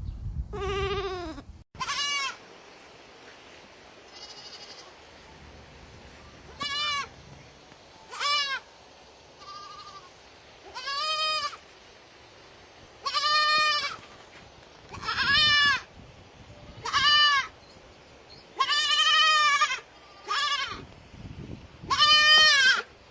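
Baby goat bleating over and over: about a dozen high, quavering calls, each under a second, with short pauses between them. A lower, falling bleat comes first and breaks off abruptly.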